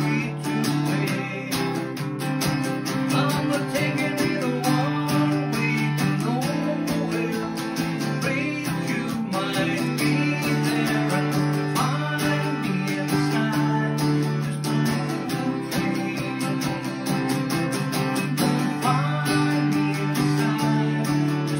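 Small-bodied acoustic guitar strummed steadily, ringing chords carrying the accompaniment of a slow folk song.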